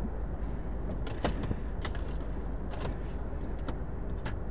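Scattered light clicks and knocks from hands handling things inside a car cabin, over a steady low rumble.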